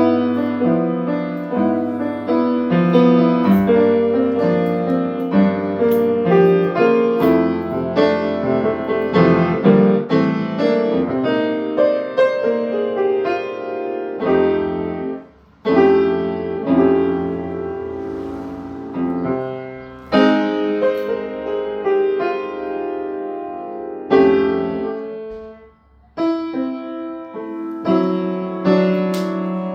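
Solo piano playing: chords and runs of notes. The music falls away to short pauses about halfway through and again near the end, each broken by a newly struck chord.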